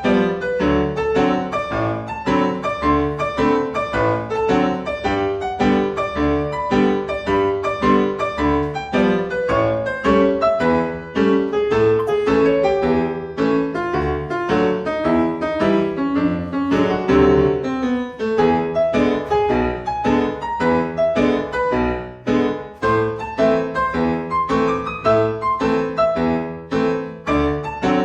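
Cha-cha-cha dance music led by piano, with a steady, even beat.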